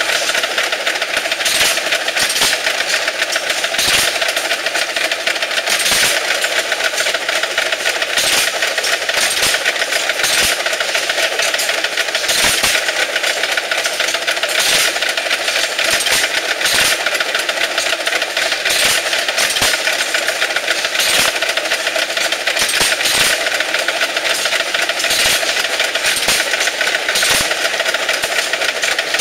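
Antique hit-and-miss stationary gas engines running: a steady mechanical clatter, with a sharp firing bang about every two seconds as an engine fires between coasting strokes.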